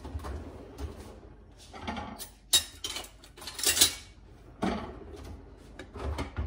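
Metal kitchen utensils and dishes clattering as they are handled, a run of clinks and knocks, the loudest about two and a half and four seconds in.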